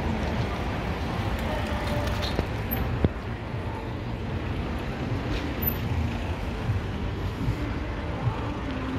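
Street traffic: motor vehicles running past in a steady wash of engine and tyre rumble, with one sharp knock about three seconds in.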